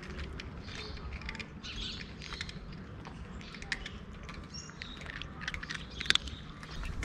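A cat crunching dry kibble close up, a run of irregular sharp crunches and clicks as it chews, the sharpest about six seconds in.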